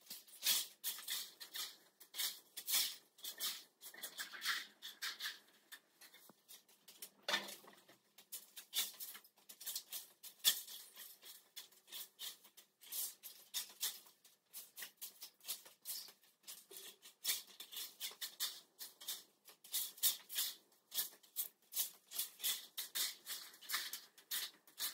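Irregular crisp crackling and rustling of torn sheet scraps being pulled and handled.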